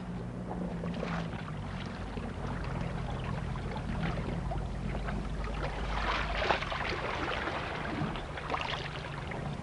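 A boat's outboard motor running steadily with a low hum, over lapping water; the deepest part of the rumble drops away about two-thirds of the way through.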